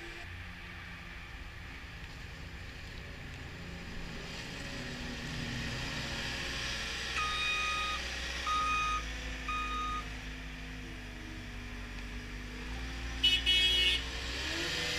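CAT 236D skid steer loader's diesel engine running as the machine drives and turns, its pitch shifting as the revs change. Its back-up alarm beeps three times in the middle. Near the end there is a brief, louder, higher-pitched pulsing tone.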